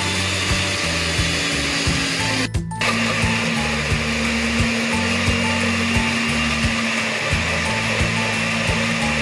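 Countertop blender running steadily, blending tomatillos into green salsa, over background music with a steady beat. The blender sound breaks off briefly about two and a half seconds in, then carries on with a steady motor hum.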